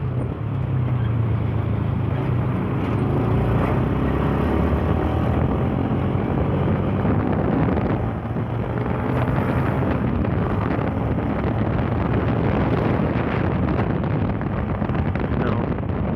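Yamaha Fazer 150's single-cylinder engine running steadily while riding, with wind buffeting the microphone; the level dips briefly about halfway through.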